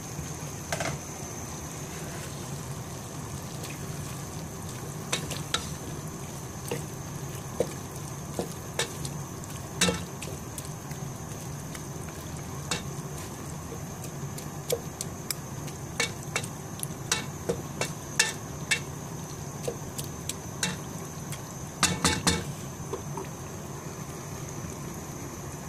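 Courgette and tomato curry sizzling steadily in a pot while a wooden spatula stirs it, with scattered clicks and scrapes of the spatula against the pot. Near the end there is a quick run of louder knocks.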